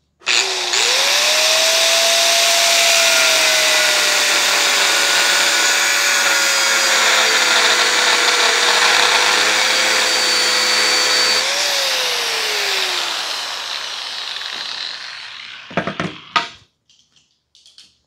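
Corded angle grinder spinning up and grinding on a steel smoker firebox door, a steady motor whine over the loud hiss of the disc on steel. About eleven seconds in the motor is let go and winds down, falling in pitch and fading, followed by a few knocks near the end.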